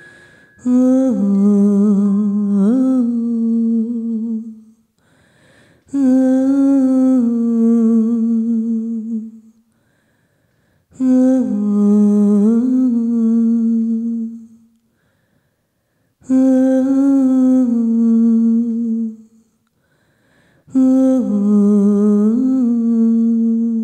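A woman's voice humming the same short wavering phrase five times over, each phrase about four seconds long with a short pause between.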